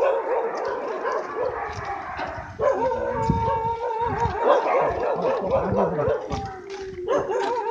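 Many dogs barking and yelping at once, with long drawn-out cries among them.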